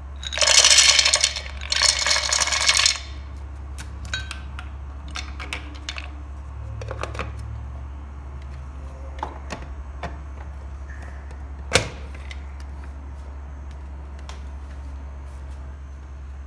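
Whole almonds poured into a plastic chopper jar, rattling against the plastic in two pours in the first three seconds. Scattered plastic clicks and knocks follow as the chopper's accessory, lid and motor unit are fitted on top, with one sharper click near the middle. A steady low hum runs underneath.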